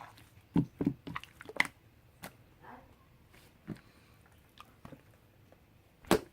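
Slime being squeezed and kneaded by hand, making wet squishes and scattered sharp pops and clicks. The loudest pops come about half a second in and near the end.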